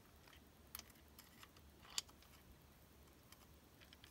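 Near silence with a few faint small clicks, the clearest about two seconds in, from handling a tiny screw and a screwdriver.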